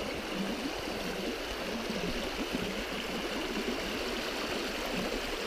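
Shallow stream running over a stony bed at the stepping stones: a steady rush of flowing water.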